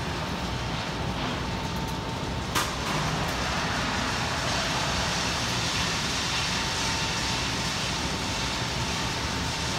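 Ital Press panel press line running with a steady machinery noise and a thin whine. A single sharp knock about two and a half seconds in, after which the noise gets a little louder and the whine drops out for a few seconds before returning.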